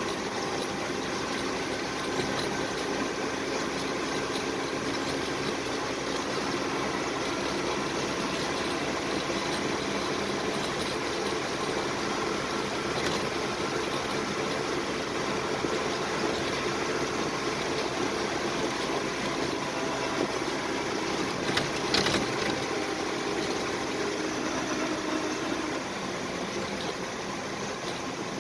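A 1941 Dodge WC truck running at steady road speed, its engine and road noise heard from inside the cab. There is a brief knock about three quarters of the way in, and the engine note eases slightly near the end.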